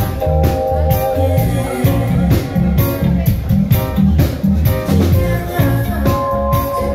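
A live reggae band plays: a heavy, rhythmic bass line, drums and held keyboard chords, with a woman singing over them.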